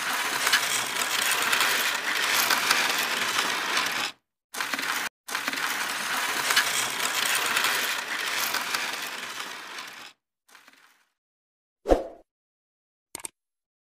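Intro sound effects: a dense, crackling noise that breaks off twice briefly and fades out about ten seconds in, then a single loud thump near twelve seconds and a short high click about a second later.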